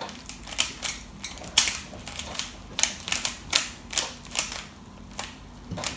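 Plastic Rubik's Cube layers being twisted by hand: a run of irregular sharp clicks, about three or four a second, with a short pause near the end. This is the last step of the solve, orienting the middle edge pieces.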